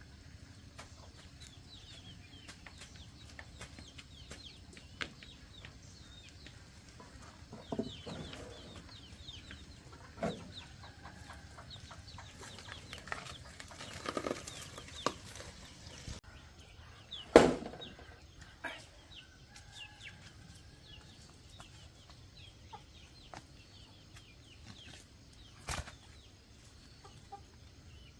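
Chickens clucking, with scattered knocks and clatters; one sharp knock a little past halfway is the loudest sound.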